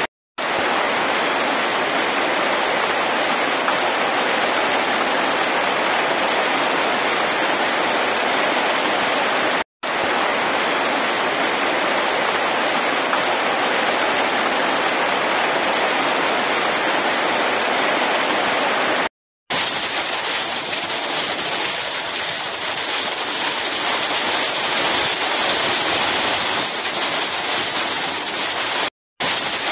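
Heavy rain pouring down steadily, an even hiss with no thunder, cut by brief gaps of silence about every ten seconds.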